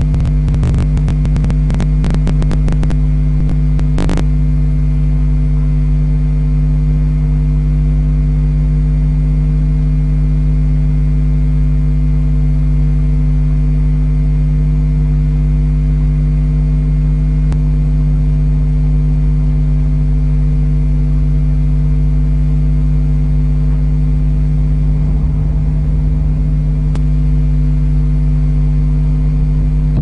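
Loud, steady electrical hum made of several fixed tones, unchanging throughout. A quick run of crackling clicks sits over it in the first few seconds, ending in a sharper click at about four seconds.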